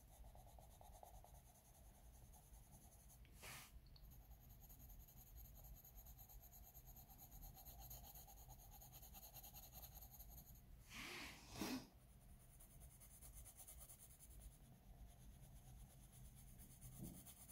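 Faint scratching of a Derwent Coloursoft coloured pencil shading on paper, close to near silence, with two brief louder noises about three and a half and eleven seconds in.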